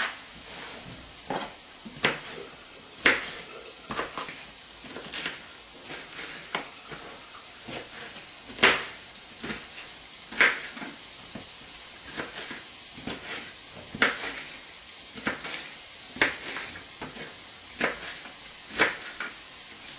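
Kitchen knife chopping a red bell pepper on a cutting board: irregular sharp knocks, one or two a second, some much louder than others. Under them, carrots sizzling steadily in hot oil in a frying pan.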